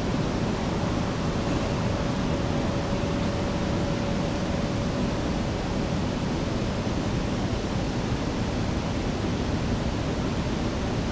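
Steady rushing outdoor background noise, with a faint steady tone in the background that fades about halfway through.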